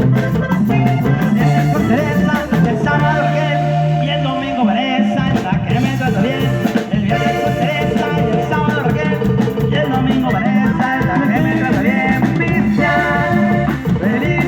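Live cumbia band playing: a melody in held notes over a steady bass and percussion.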